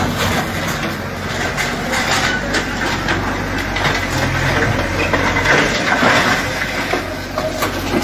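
Diesel engine of a JCB backhoe loader running under load as it demolishes a brick house, with repeated knocks and clatter of breaking brick and corrugated metal sheets.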